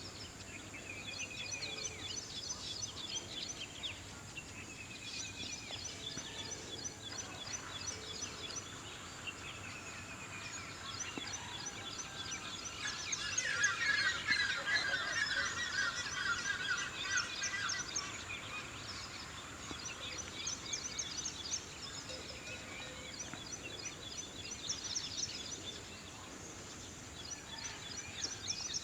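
Several small birds chirping and calling together, a busy chorus of quick repeated high notes that grows densest and loudest about halfway through.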